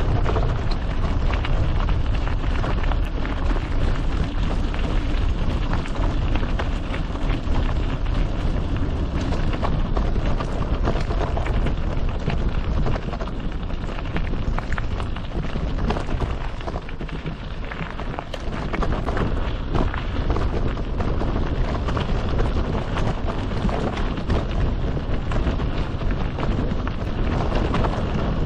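Mountain bike riding over a gravel trail: a steady, dense crunch and rattle from the tyres and bike, with a low rumble underneath. It eases briefly about two-thirds of the way through.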